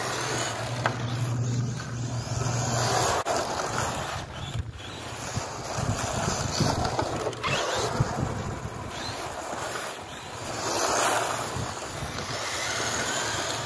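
Electric RC touring car (HSP Flying Fish with a brushed 540 motor) driving across the lot, its motor whine rising and falling with the throttle as it passes nearer and farther. Wind noise on the microphone runs under it.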